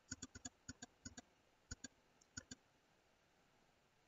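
Faint computer mouse clicks, about a dozen, mostly in quick press-and-release pairs, over the first two and a half seconds, then they stop.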